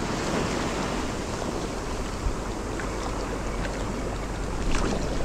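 Sea waves washing steadily, with wind buffeting the microphone; a few faint ticks sound now and then.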